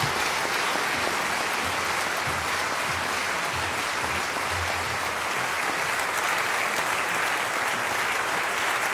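A large seated audience applauding steadily, many hands clapping together.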